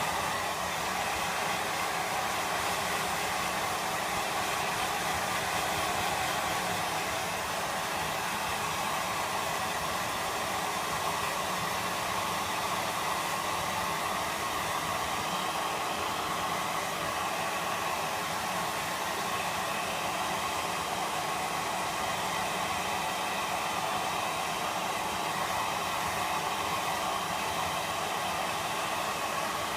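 Hair dryer blowing steadily, a constant rushing hiss with a faint motor hum, drying a dog's wet fur after a bath.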